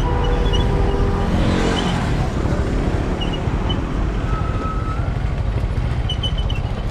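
Motorcycle engines running with a steady rumble of wind on the microphone; between about one and two seconds in, one engine note falls in pitch.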